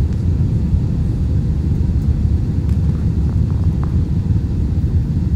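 Steady low roar of an Airbus A320-family airliner in flight, its jet engines and airflow heard inside the passenger cabin.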